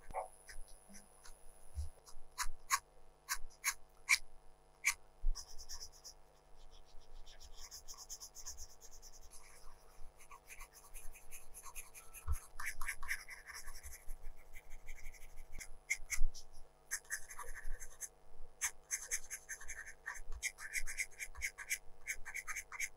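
Colored pencil scratching on drawing paper in short shading strokes. At first it gives a few separate light ticks, then quicker runs of scratchy strokes in clusters.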